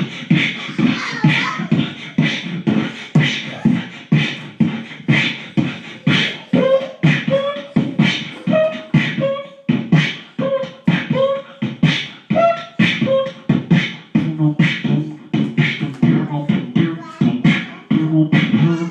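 Man beatboxing a steady beat with his mouth, about two strikes a second, with short held vocal notes in the middle and a low hummed bassline near the end.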